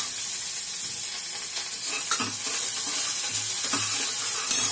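Chopped onions sizzling in hot oil in a steel pot, a steady hiss, with a few light knocks of the stirring spoon against the pot.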